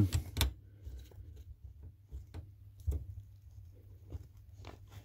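Scattered light clicks and taps of a tubing cutter being handled on half-inch copper pipe, over a low steady hum.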